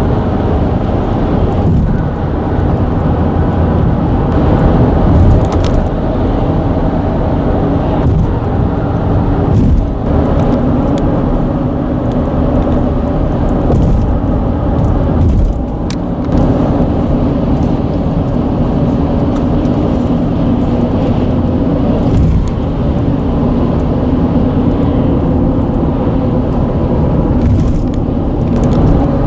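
Road traffic on a bridge deck: a loud, steady low rumble with a humming tone running through it, and a thump now and then.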